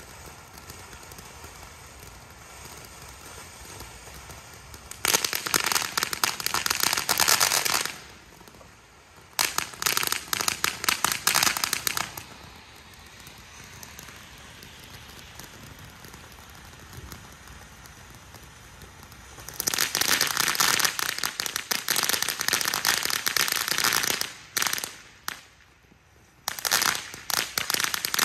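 Fireworks crackling in several bursts of rapid pops, each burst lasting a few seconds, with a few shorter bursts near the end.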